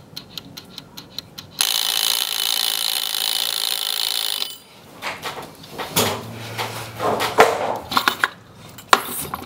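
A dial kitchen timer ticking quickly, about five ticks a second. After about a second and a half, a loud steady hiss cuts in and lasts about three seconds, followed by scattered clicks and knocks of handling.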